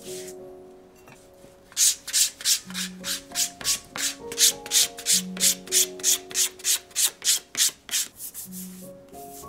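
Quick back-and-forth hand strokes of an abrasive on shoe leather, about three a second, starting about two seconds in and stopping near the end, over soft background music.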